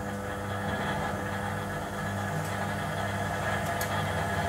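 A centrifugal boot-testing machine running at speed, whirling water-filled motorcycle boots so that any leak would be forced out. It makes a steady mechanical hum over a whirring hiss that grows slightly louder.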